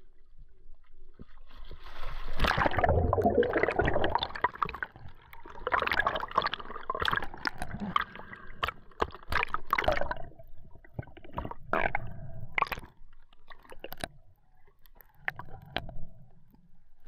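A diver entering the sea from a boat: a splash about two seconds in, then underwater bubbling and water rushing over the camera, with scattered sharp knocks, going quieter near the end.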